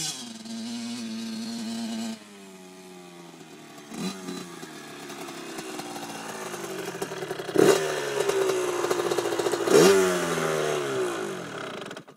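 Kawasaki KX80 two-stroke motocross bike engine revving up and down while riding, getting louder as it comes close, with two sharp throttle blips about eight and ten seconds in, each falling away after. The sound cuts off suddenly just before the end.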